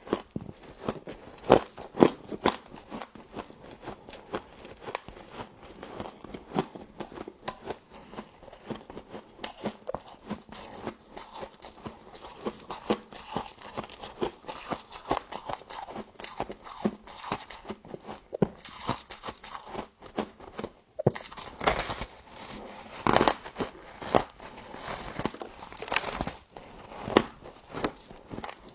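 A person biting into and chewing frost close to the microphone: a rapid, irregular run of crisp crunches, growing louder and denser about three-quarters of the way through.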